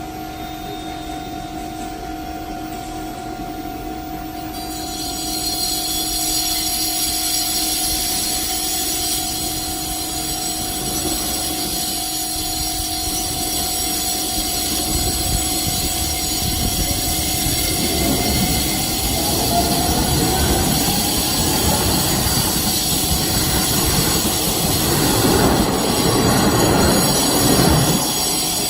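Japanese railway level-crossing warning bell of the standard Keisei type, ringing steadily as an electronic two-tone signal. Halfway through, a Keisei train passes over the crossing: wheels rumbling on the rails and a brief rising motor whine build up and cover the bell.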